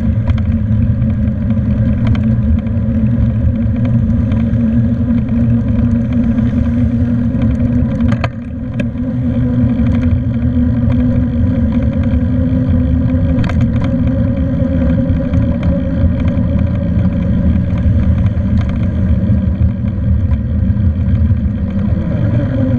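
Wind buffeting the microphone of a handlebar-mounted camera on a moving bicycle, with a steady hum that falls in pitch near the end. A few sharp knocks come from bumps in the road.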